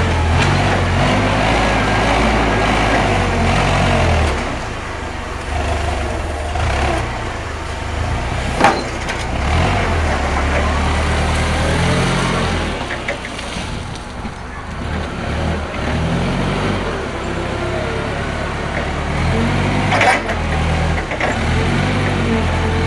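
Propane forklift engine running as the forklift drives and maneuvers, its pitch rising and falling several times as it revs. Two sharp clunks, one about nine seconds in and one about twenty seconds in.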